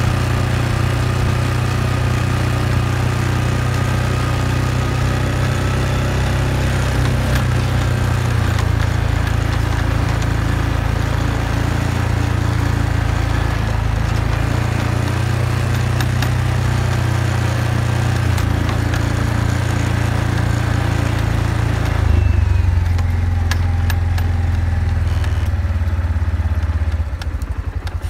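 ATV engine running steadily while riding a trail. About 22 s in the engine note drops lower and the rest of the noise quietens.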